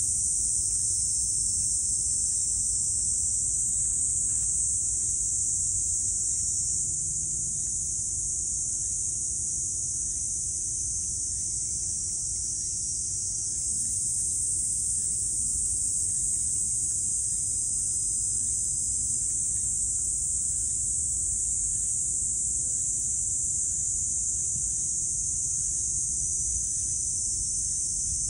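A steady, high-pitched chorus of insects droning without a break, with faint irregular lapping from two cats drinking from a plastic water tray.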